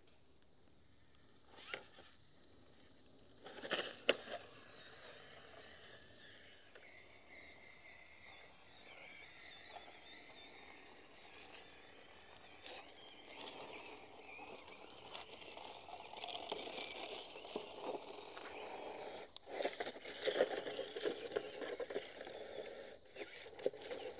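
FMS FCX18 Hummer EV micro RC crawler crawling over rock in low gear: faint whir of its small electric motor and geartrain, with its tyres scraping and crunching on stone and dry leaves. There is a sharp click about four seconds in, and the sound grows louder through the second half with scattered clicks.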